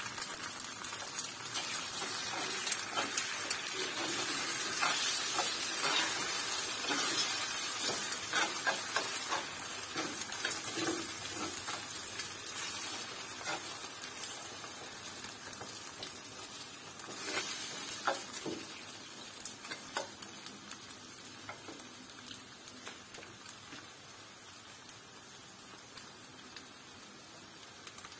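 Eggs, sausage slices and green pepper sizzling in a frying pan while a metal spoon stirs and scrapes through them, with many light clicks of spoon against pan. The sizzling fades gradually toward the end.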